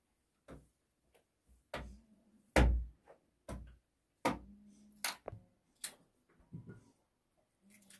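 A string of irregular sharp knocks and clicks, about ten, with near silence between them; the loudest comes about two and a half seconds in.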